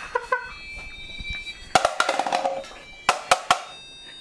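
Music with drum and percussion hits, with a cluster of sharp strikes in the middle and more in the second half.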